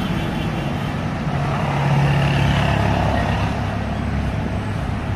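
A motor vehicle's engine running and passing by over a steady traffic rumble, its low drone swelling to a peak about two seconds in and then fading.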